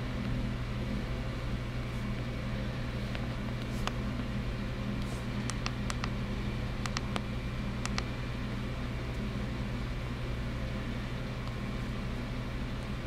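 Steady low machine hum of room equipment, with a few faint short clicks between about four and eight seconds in.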